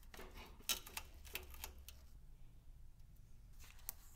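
A few faint, sharp clicks and light metallic taps, most of them in the first second and a half and one more near the end, from hand work on a car's front bumper mounting, over a low steady hum.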